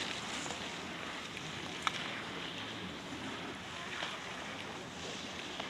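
Steady rushing wind noise on a camcorder microphone on an open ski slope, with a single sharp click about two seconds in.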